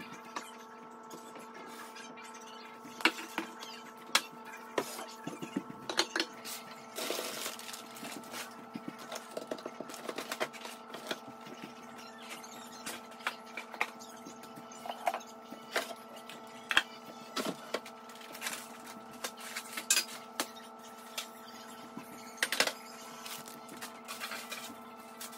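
Irregular knocks, clicks and clatter of food packages, boxes and jars being handled and set down on a kitchen counter, over a steady hum.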